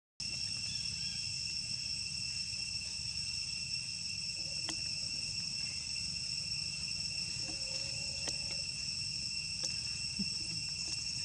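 Steady, high-pitched insect chorus, several unbroken trills at different pitches layered together, over a low rumble, with a couple of faint clicks.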